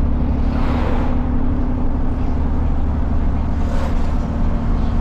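Truck's diesel engine running steadily through a straight-piped exhaust, heard from the cab while cruising, with no revving. Two brief rushing swells rise over it, about a second in and again near four seconds.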